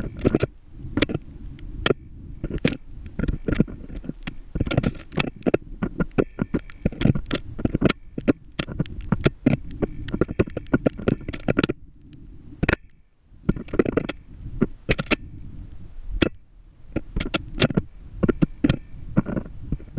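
Home-made GoPro rig knocking and scraping against the borehole wall as it is lowered down the shaft: rapid irregular knocks and scrapes over a low rumble, with a brief lull about two-thirds of the way through.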